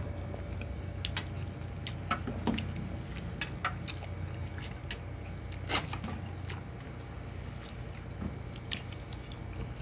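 Mouth sounds of people eating rice and stew by hand: irregular wet chewing and lip-smacking clicks, scattered through, over a steady low hum.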